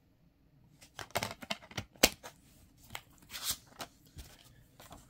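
DVD and its plastic keep case being handled: a run of plastic clicks and rattles about a second in, ending in a sharp snap as the disc goes back onto the case's centre hub, then a short rustle of the paper insert being picked up.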